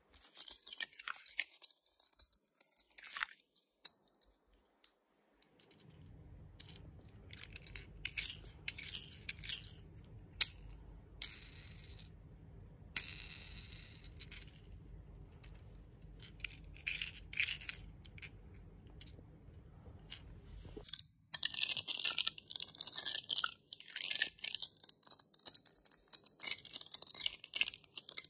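Hands handling paper and plastic: light crinkles of a folded paper leaflet and small clicks and taps of a plastic toy and capsule. About three quarters of the way in, this gives way to dense, louder crinkling and tearing as a small plastic candy wrapper is torn open.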